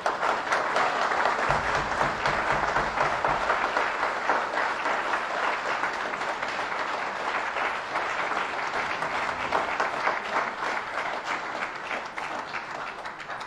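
Audience applauding: many people clapping at once in a dense, sustained ovation that starts abruptly and thins out near the end.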